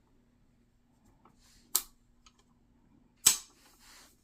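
Two sharp plastic-and-metal clicks, about a second and a half apart with the second louder, from the AR-15's flip-up sights being snapped up into place.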